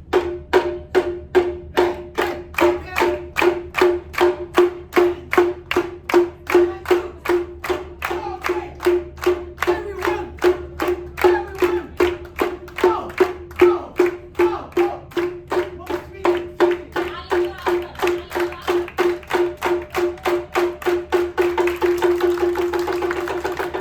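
Wooden hyoshigi clappers struck in a steady beat of about two to three clacks a second, each clack ringing at the same pitch, quickening into a rapid roll near the end. Voices join in faintly in the middle.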